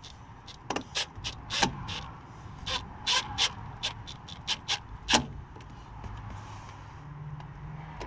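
Milwaukee M12 cordless impact driver driving small Phillips screws home: an irregular run of short, sharp clacks over the first five seconds, stopping once the screws are tight.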